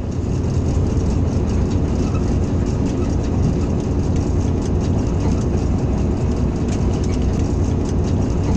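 Steady running noise of a Hitachi HBU-20 diesel-electric locomotive under way, heard from its cab: a constant low engine and wheel drone with light, irregular rattling clicks over it.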